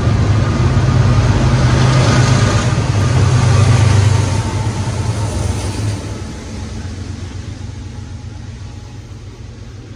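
Freight train passing: covered hopper wheels rumbling on the rails, then the rear pair of BNSF diesel locomotives going by with a loud low engine drone. The sound drops about four seconds in and again near six seconds, fading as the train disappears into the tunnel.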